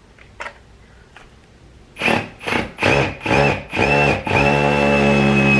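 Power drill driving a screw: two light clicks, then five short trigger pulses of the motor and, from about four seconds in, a steady run with a high whine that sags slightly in pitch.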